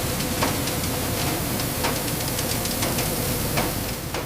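Vibrating grain-cleaning deck running: a steady hiss with scattered sharp ticks.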